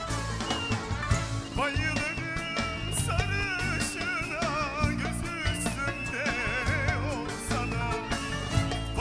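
Live band music with a steady beat, and a man singing into a microphone in long, wavering, ornamented lines from about two seconds in.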